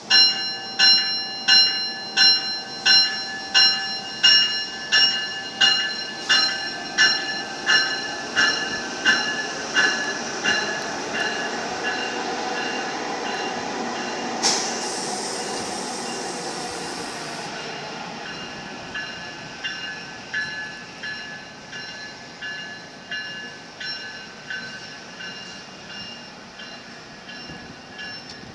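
Denver RTD A Line electric commuter train (Hyundai Rotem Silverliner V) departing, its bell ringing steadily at about one and a half strokes a second. The train's running noise swells as it pulls past, with a hiss of about three seconds midway. The bell grows fainter as the train draws away but is still ringing near the end.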